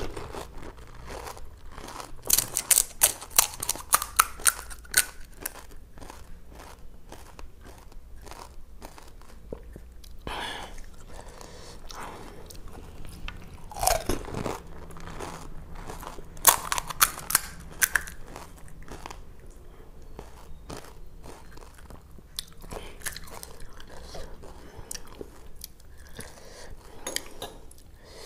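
Close-up crunching and chewing of pani puri, crisp hollow puris filled with spiced water. Two bouts of loud crunches, a couple of seconds in and again just past the middle, with quieter wet chewing between them.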